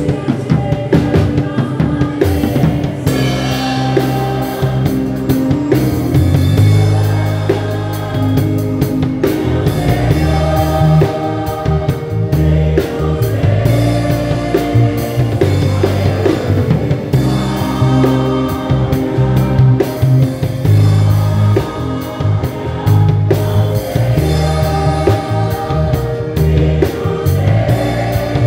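Acoustic drum kit played with sticks along to a gospel-style worship song with singing.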